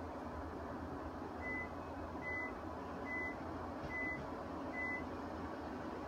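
Five short, high electronic beeps, evenly spaced a little under a second apart, over a steady background noise.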